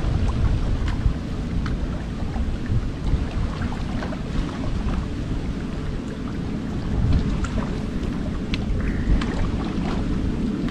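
Wind buffeting the microphone as a steady low rumble, with a few faint scattered clicks.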